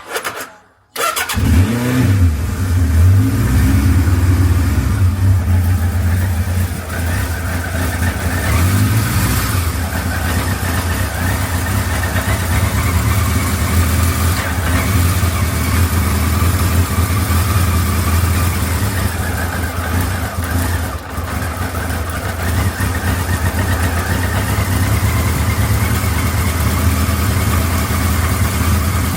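Kawasaki KZ1000 Mk2's air-cooled inline-four starting about a second in, revved briefly twice, then idling steadily. It carries the clattering that the owner traced to the cam chain tensioner needing adjustment.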